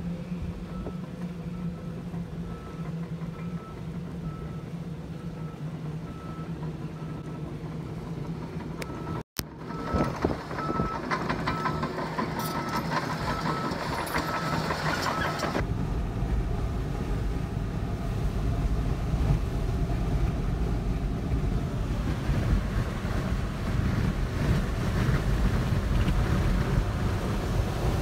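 Car cabin noise in a gale: a steady engine hum with wind rushing over the car, then, after a cut, a louder, steady low rumble of the car driving along the road.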